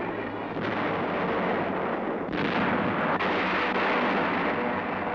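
Artillery bombardment: a series of heavy blasts, with new ones breaking in suddenly less than a second in, a little past two seconds and about three seconds in, each dying away slowly.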